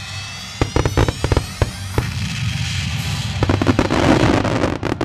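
Fireworks display: a run of sharp bangs from bursting shells for about the first two seconds, then a dense crackling of many small golden bursts building up near the end. Music plays underneath.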